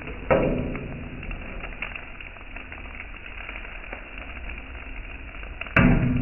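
Metal kothu blades striking a flat iron griddle: two loud ringing clangs, one just after the start and one near the end, with lighter taps between and a steady sizzle of food frying on the hot plate.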